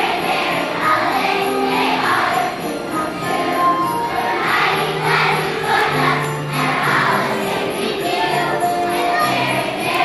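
A young children's choir sings a holiday song over a recorded backing track. Jingle bells shake in a steady beat, over held bass notes.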